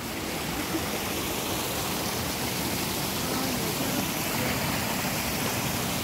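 Swollen forest stream running fast over rocks, a steady rushing and splashing of water.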